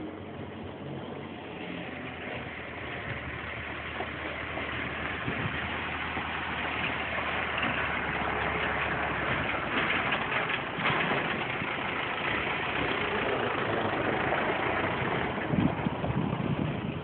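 Farm tractor engine running as the tractor drives by, growing louder over the first half and then holding steady.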